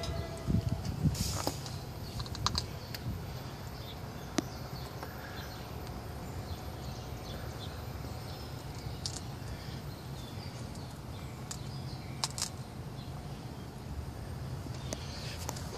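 Scattered light clicks and taps, a handful spread over the time, over a steady low outdoor rumble.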